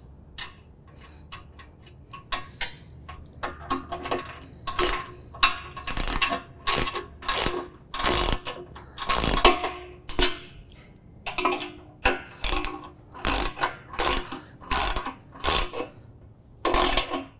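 Socket ratchet cranked back and forth in short, even strokes, its pawl clicking on each stroke, as a nut is run down onto a footrest mounting bolt. The strokes start about two seconds in, come about two a second, and pause briefly about ten seconds in.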